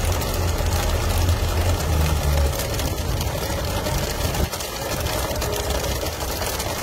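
Fishing boat's engine running steadily under a rush of water and wind as the boat moves fast through the sea. A deep low hum in it drops away about two and a half seconds in.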